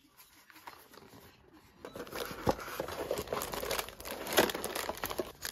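A cardboard gift box being opened by hand and the wrapping inside handled: after a quiet start, a run of irregular crinkling and crackling begins about two seconds in.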